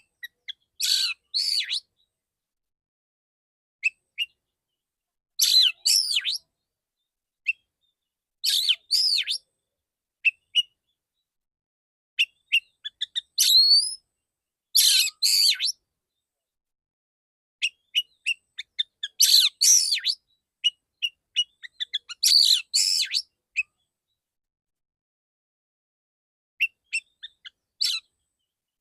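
Male oriental magpie-robin singing in short, loud phrases of whistles and chattering notes, with pauses of about a second or two between them.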